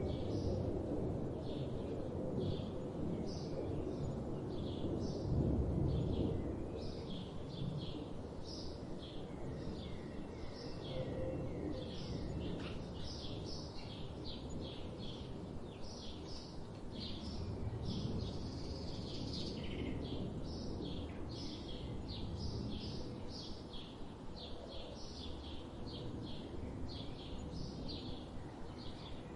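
Songbirds chirping and singing, a steady stream of short, high notes in quick succession, over a low background rumble that is louder for the first several seconds.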